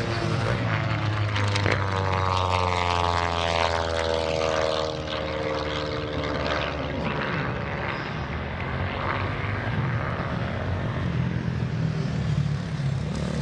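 Engine and propeller drone of a Long-EZ pusher aircraft flying past, its pitch falling steadily over several seconds as it goes by.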